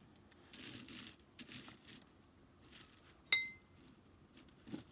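Costume jewelry being handled: soft rustling, then one sharp clink with a short ringing tone about three seconds in, as a piece knocks against another.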